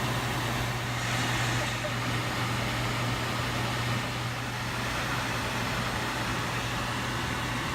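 Steady fan noise with a constant low hum.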